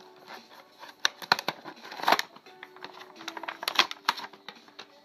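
Clear plastic toy packaging crackling and clicking as it is gripped, bent and pried at while being opened, with a run of sharp irregular clicks.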